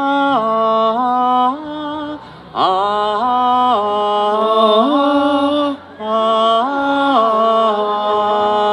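A man singing a short wordless melody line in three phrases of held, stepping notes, with brief breaks between them. It demonstrates the chorus part for the audience to sing along.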